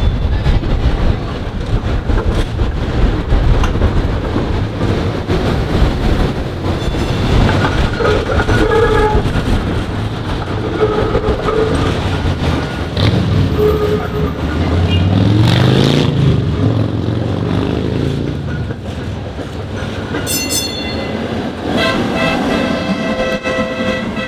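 PCC streetcar running on street track: wheels rumbling and clicking over the rails, short pitched squeals as it takes the curve, then the rising whine of its motors as it pulls away. Near the end another PCC car passes close with a steady multi-tone sound.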